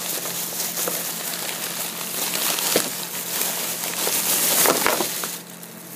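Thin plastic shopping bag crinkling and rustling steadily as it is handled and shaken, with a couple of soft knocks, growing quieter near the end.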